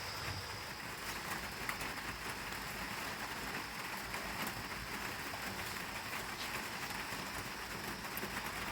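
Steady heavy rain falling, with a few sharper drop hits now and then.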